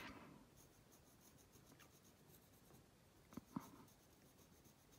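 Faint scratching of a coloured pencil shading lightly on paper, in a quick run of repeated short strokes, with a couple of soft taps about three and a half seconds in.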